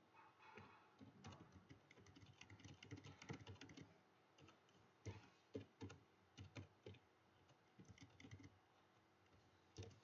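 Faint typing on a computer keyboard: quick, irregular keystrokes in short runs with brief pauses between them.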